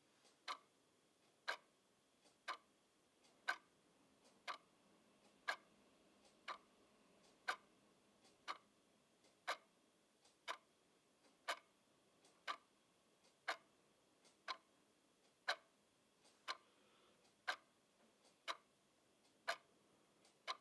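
Analog clock ticking steadily about once a second, the ticks alternating stronger and weaker as a tick-tock.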